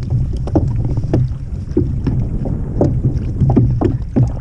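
Small waves slapping against a kayak's hull in irregular splashes, about two or three a second, over a steady wind rumble on the microphone.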